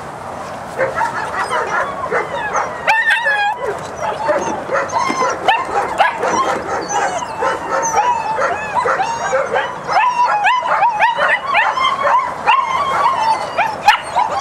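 German Shepherd puppies yipping and whining, many short high calls in quick succession without a break, with a couple of sharp knocks among them.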